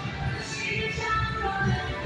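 Background music with held notes over a pulsing low end.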